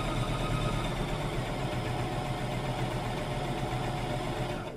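Electric sewing machine running steadily as it stitches a straight seam, a low motor hum with a rapid, even needle chatter. It stops just at the end.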